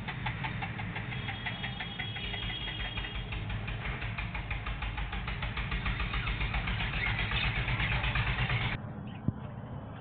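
A motor running with a steady low hum and a fast, even pulse, which cuts off abruptly near the end.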